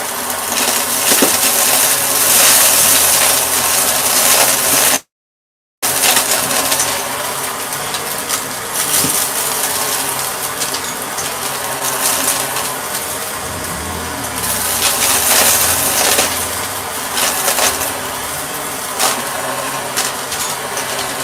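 Shark vacuum cleaner running steadily, with scattered clicks and rattles over its motor hum. The sound cuts out completely for under a second about five seconds in, then resumes.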